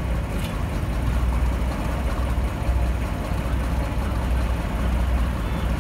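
Twin diesel engines of a British Rail Class 42 Warship diesel-hydraulic locomotive, D832 'Onslaught', running with a deep, steady rumble as the locomotive draws slowly along the platform. The rumble swells and eases every second or so.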